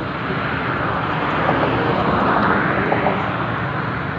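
A passing motor vehicle: a broad engine and rushing noise that swells to its loudest a little after the middle and then fades.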